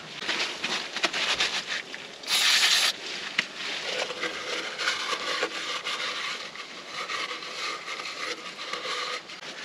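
Paper towel rubbing and scrunching against metal as grease is wiped out of a solid-axle swivel housing. About two seconds in there is a short hiss of aerosol spray: brake cleaner being sprayed onto the towel.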